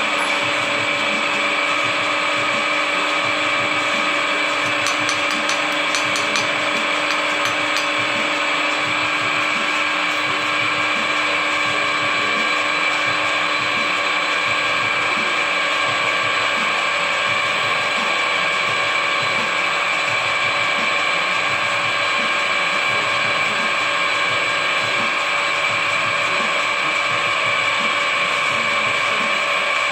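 Drill press motor and spindle running steadily: an even mechanical whine made of several steady tones over a gear-like rattle.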